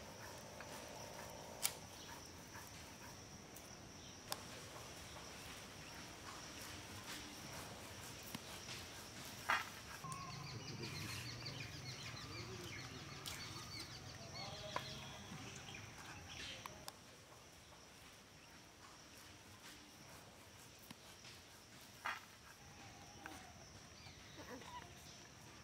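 Faint outdoor background with a steady high-pitched hum, a few sharp clicks, and brief small calls or cries in the middle.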